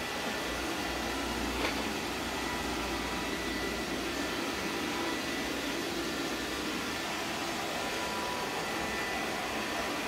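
Pongo M210S robot vacuum running in auto cleaning mode: a steady whir with faint thin tones, and a single light click under two seconds in.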